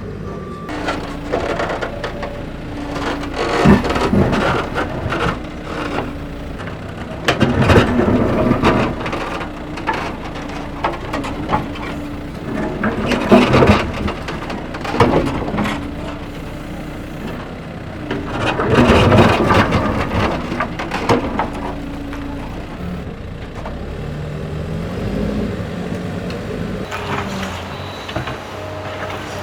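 A small motor running steadily, with repeated loud bursts of crunching and scraping every few seconds, like gravel or soil being dug and crushed by a miniature machine.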